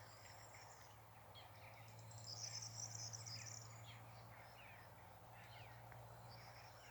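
Wild birds chirping faintly, with many short quick calls scattered throughout and a brighter, high trill from about two seconds in to about three and a half.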